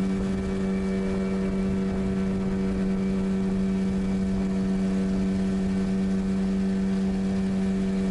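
Boat's outboard motor running at a steady cruising speed, an even, unchanging engine note.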